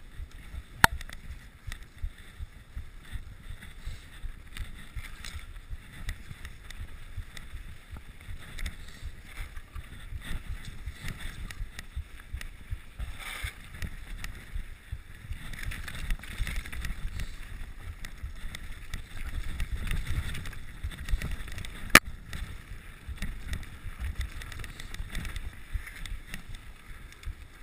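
Mountain bike being ridden over a snowy forest trail: an uneven low rumble and rattle from the tyres and bike jolting over the snow, with wind on the microphone. There is a sharp knock about a second in and another some twenty seconds later.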